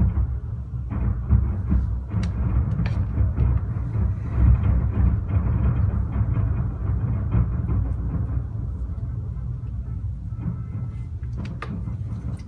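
Fireworks booming in a continuous, rolling rumble, with a few sharp cracks standing out about two and three seconds in and again near the end.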